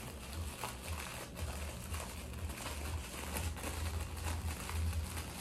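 Tissue paper crinkling and rustling in irregular handfuls as a small item is unwrapped from it, over a low steady hum.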